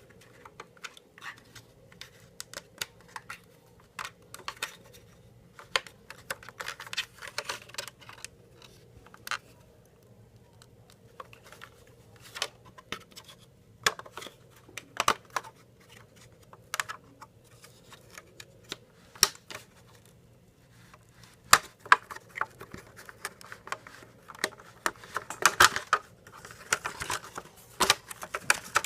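Irregular small clicks, creaks and scratches of a thin circuit board being pried off the plastic pegs of a Volvo 240 tail-light housing, with a busier run of scratching near the end.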